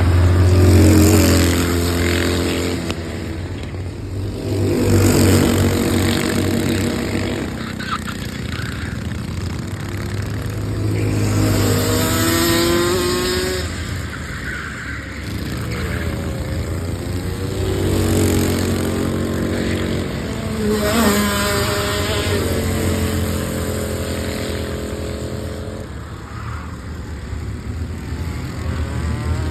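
Racing kart engines revving on track, rising and falling in pitch as the karts accelerate and pass, with the sound swelling and fading several times.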